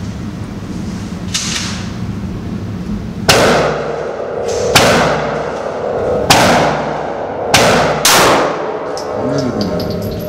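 Five handgun shots fired in an indoor range, each a sharp crack with a short ringing echo, coming at uneven intervals with the last two about half a second apart; a fainter crack comes about a second and a half in.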